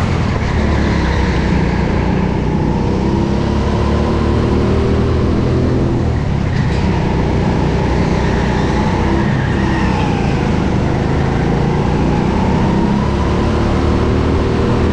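Go-kart engine running at close range, its revs rising and falling repeatedly as the kart laps the track.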